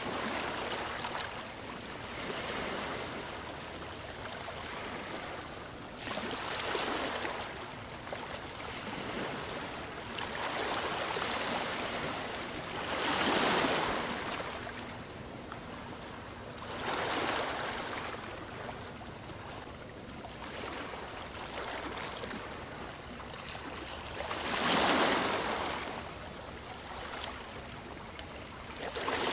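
Sea waves washing ashore, a steady rush of surf that swells and fades every few seconds, with the two biggest surges about halfway through and near the end.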